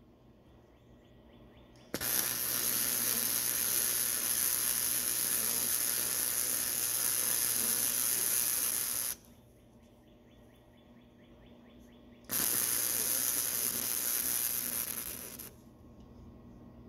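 Small wire-feed (MIG) welder arc-welding a snapped steel sword blade back together: two runs of steady crackling, sizzling arc, about seven seconds and then about three, each switching on and off abruptly as the trigger is pulled and released.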